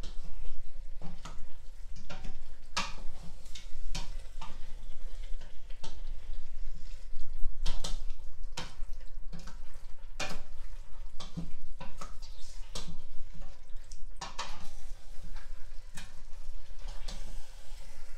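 A spatula stirring chunks of meat and tripe through a thick, oily pepper sauce in a stainless steel pot: wet squelching with irregular scrapes and knocks against the pot.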